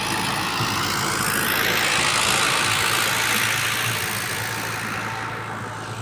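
Tractor's diesel engine running as it pulls a laser land leveller past. The noise swells about two seconds in and fades away toward the end.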